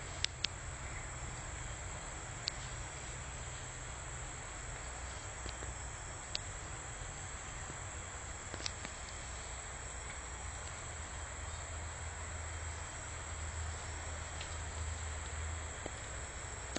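Forest ambience: steady insect drone with a low rumble underneath, broken by a few sharp clicks.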